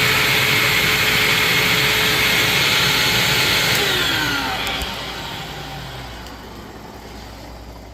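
Hoover WindTunnel Self-Propelled Anniversary upright vacuum running steadily, then switched off about four seconds in, its motor whine falling in pitch and fading as it spins down.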